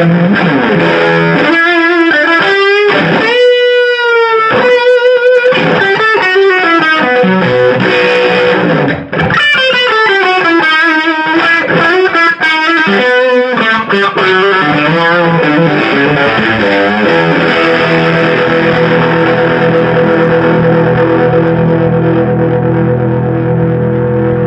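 1963 Hofner Galaxie electric guitar played through a 1968 Sound City Concord amplifier with overdrive. It plays a lead line with wavering, bent notes and a brief break about nine seconds in, then a chord is left ringing steadily for the last third.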